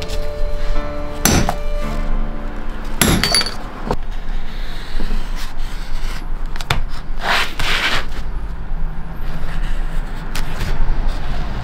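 A hand knife cutting leather on a plastic cutting board: a few sharp knocks, then a longer scraping stroke about seven seconds in. Soft background music with held notes plays under the first few seconds.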